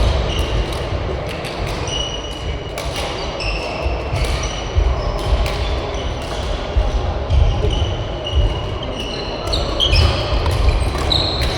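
Badminton rally: rackets striking the shuttlecock in quick succession, shoes squeaking sharply on the court floor again and again, and footsteps thudding.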